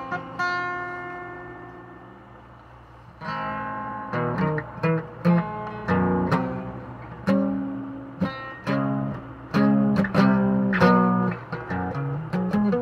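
Fender Starcaster acoustic guitar being played: a strummed chord rings out and fades over the first three seconds, then picked single notes and chords follow in a loose rhythm.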